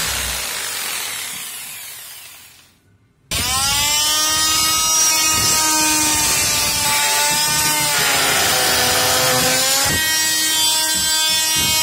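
Corded electric power saw cutting wood: its sound fades out over the first few seconds, then it starts abruptly about three seconds in and runs with a steady high whine, the pitch sagging a little under load near the end with a short knock.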